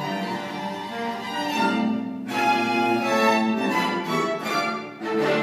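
String quartet of two violins, viola and cello playing a tango: sustained bowed notes, a brief break about two seconds in, then louder accented chords leading to the closing chord near the end.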